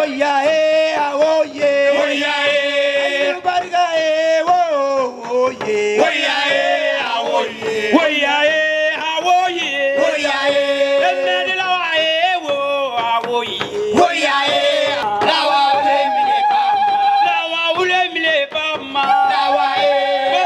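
Music with singing, the voice lines wavering and gliding in pitch.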